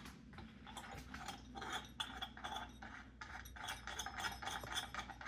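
Rapid ratcheting clicks of the large plastic nut being spun by hand onto the threads of a sink drain strainer from underneath the sink.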